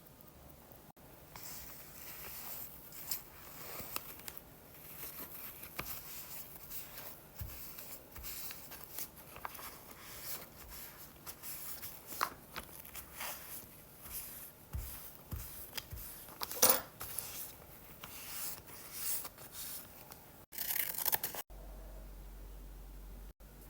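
Close handling noise: irregular rustling, scraping and light clicks, with one sharper click about two-thirds of the way through, broken by abrupt cuts near the end.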